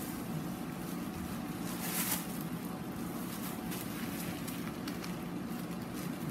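Steady low hum with a few soft rustles of tissue paper being folded and pressed flat, the clearest about two seconds in.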